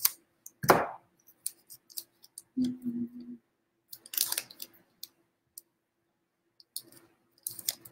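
Painter's tape being pulled off the roll and torn: three short sharp rips, about a second in, midway and near the end, with small handling clicks between them.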